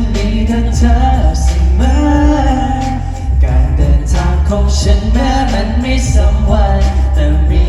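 A Thai pop song played loud over a PA, with a voice singing over a backing track that has heavy bass and a steady drum beat.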